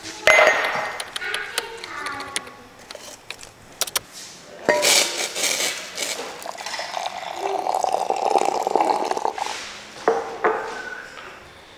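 Ceramic mug knocking on a countertop, then hot water pouring into it for a few seconds. A couple of light plastic clicks come near the end, like a squeeze bottle's flip cap.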